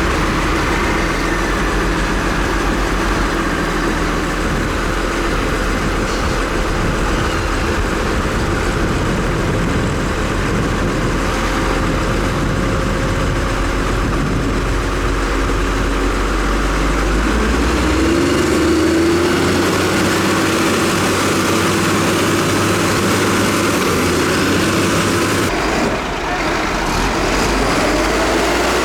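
Heavy diesel engines of earthmoving machines running steadily. The engine sound changes abruptly about two thirds of the way through and again near the end.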